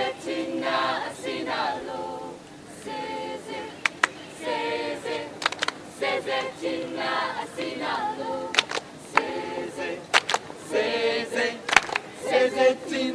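A group of voices singing together in phrases, with a few sharp handclaps scattered through.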